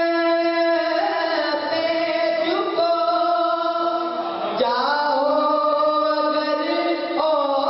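A man singing an Urdu naat into a microphone. He holds long, drawn-out notes that step from pitch to pitch, and a little past halfway a new phrase begins with an upward slide.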